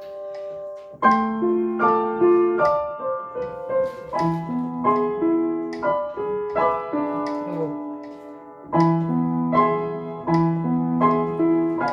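Piano played slowly with both hands and no sustain pedal, low bass notes under a melody. A held chord gives way to a new phrase struck about a second in.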